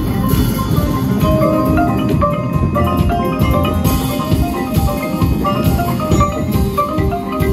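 Indoor percussion ensemble playing: marimbas and other mallet keyboards sound quick runs of short notes over drum hits.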